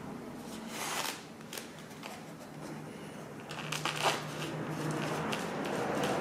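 Foam model-plane parts being handled: the tail section is rubbed and pressed onto the fuselage, making rustling and scraping with a few sharp clicks, the loudest about a second in and around four seconds in.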